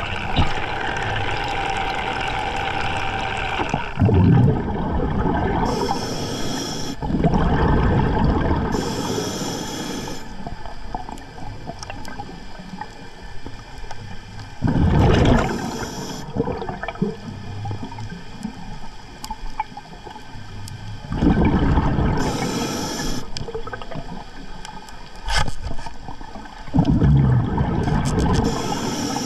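A scuba diver breathing through an Atomic regulator underwater: bursts of exhaled bubbles rush and gurgle past every several seconds, with the regulator's high inhalation hiss between them.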